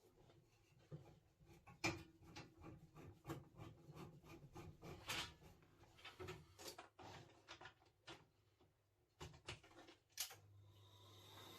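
Faint, irregular clicks and knocks of tools and boiler parts being handled. A steady hum rises in near the end.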